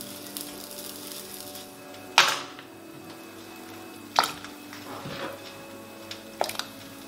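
Peeled potato chunks dropped by hand into a saucepan of water, splashing four times, the first splash about two seconds in the loudest. A steady faint music bed runs underneath.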